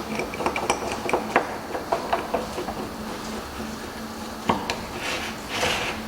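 Small hard objects clicking and clinking as they are handled, a quick irregular run of light taps, with a louder knock about four and a half seconds in and a brief rustle near the end.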